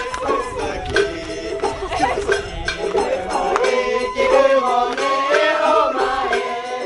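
Traditional Japanese festival hayashi music from a float procession: a wavering melody line over intermittent drum strikes.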